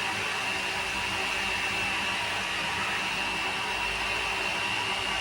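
Steady whir of an electric motor blowing air, with a thin high whine held at one pitch.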